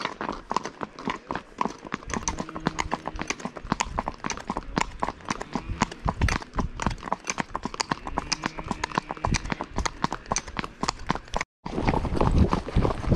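Hooves of several horses clip-clopping on an asphalt road, an irregular clatter of many overlapping strikes, heard from the saddle of one of the horses. Near the end the sound cuts out for a moment and comes back with a louder low rumble under the hoofbeats.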